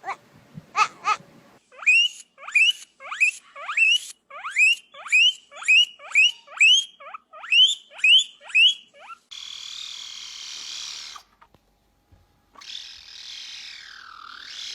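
An animal's squeaky calls, repeated about thirteen times at roughly two a second, each rising sharply in pitch. They are followed by a shorter, different high-pitched animal sound near the end.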